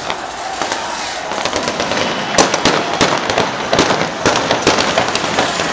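Rapid, irregular gunfire: many sharp cracks, several a second and thickest from about two seconds in, over the steady din of a large crowd.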